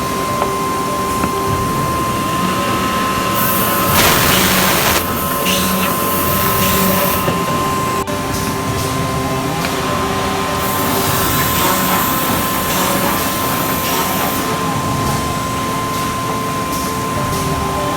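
Automatic horizontal drilling machine for woodworking running, a steady whine under continuous mechanical noise, with several stretches of louder hissing.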